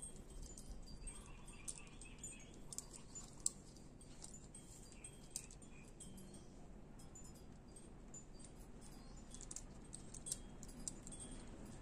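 Faint small metallic clicks and clinks of a folding hex-key multi-tool being handled against the bolts and hinge of a folding bike's handlebar stem, with one sharper click a few seconds in.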